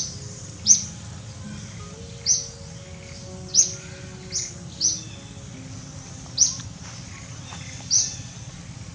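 A bird chirping: about eight short, sharp, high chirps at uneven intervals of roughly a second, over soft background music.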